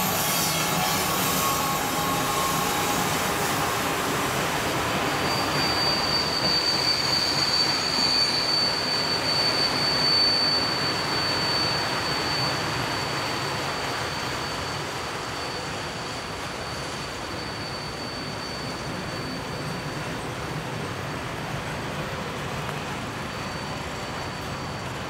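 Freight train hauled by RENFE class 269 electric locomotives passing, its wagons rolling by with a steady rumble. From about five seconds in, a high, steady wheel squeal rings over the rolling noise, which eases slightly in the second half.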